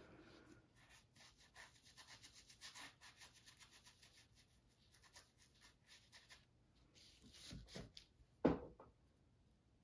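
Paintbrush scrubbing and dabbing acrylic paint onto a heavily textured canvas, in quick short scratchy strokes a few a second, then a single louder thump near the end.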